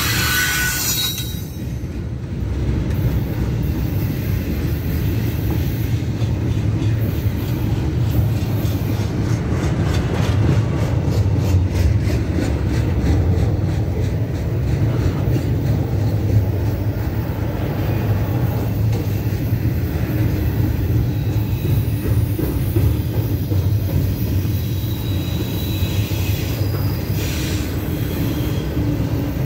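Double-stack intermodal well cars of a freight train rolling past: a steady low rumble of steel wheels on rail, with runs of repeated clicks as the wheels cross rail joints. A brief high wheel squeal rises near the start.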